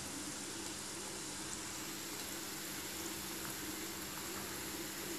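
Grated cassava balls deep-frying in hot cooking oil in an aluminium wok: a steady sizzle and bubbling of the oil.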